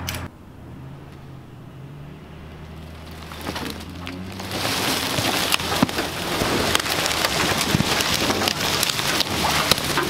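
Low hum of a pickup engine running under tow, then from about four seconds in a dense, continuous crackling and snapping of dry brush, twigs and leaves that becomes the loudest sound.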